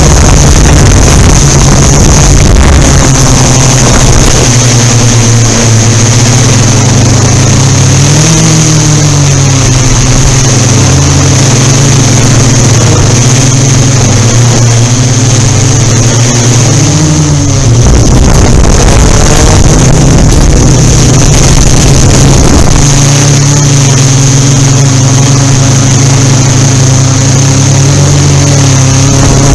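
Yuneec Typhoon Q500 4K quadcopter's motors and propellers hovering: a steady, loud hum whose pitch wavers as the motors correct against gusty wind. It is heard through the drone's own camera microphone, which has no wind filtering, so low wind buffeting swamps the hum at the start and again about two-thirds of the way through.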